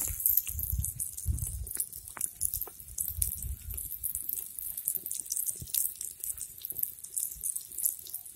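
Masala-coated river fish sizzling in oil on a fire-heated rock, with the wood fire crackling underneath in many small sharp pops and some low rumbling.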